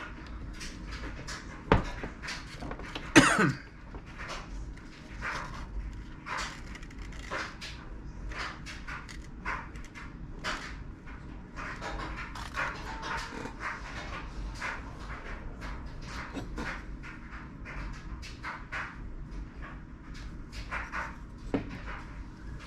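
Dog panting in quick, uneven breaths, with a sharp click about two seconds in and a brief falling squeak a second later.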